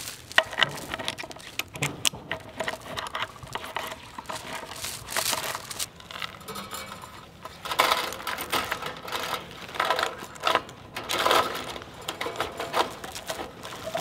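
Steel chain clinking and rattling as it is handled and hooked onto woven wire fencing, in many short metallic clinks, thicker around the middle and again near the end.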